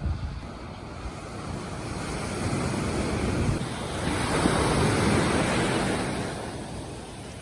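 Sea waves washing onto the shore, one wave swelling about halfway through and fading near the end, with wind buffeting the microphone.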